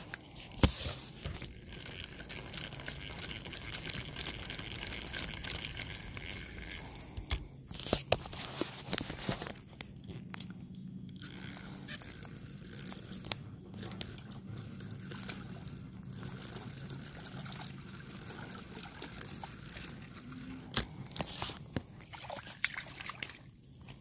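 Water splashing and sloshing at the bank edge as a catfish is brought in and landed, with many sharp knocks and rustles from handling.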